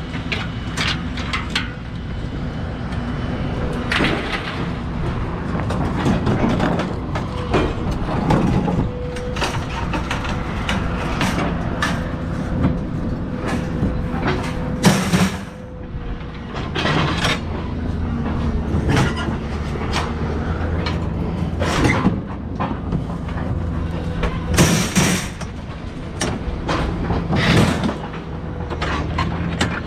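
Scrap metal clanking and banging, many separate knocks, as it is unloaded by hand from a trailer, over an engine running steadily.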